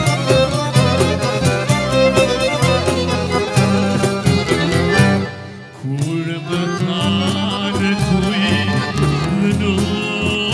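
Albanian folk song played by a band, fast and rhythmic. The music briefly drops away a little past halfway, then comes back with a wavering melody line over the accompaniment.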